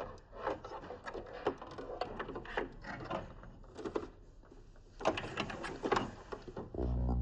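Small clicks, taps and rattles of plastic copier parts and cable connectors being handled and pushed back into place. A low steady hum starts near the end.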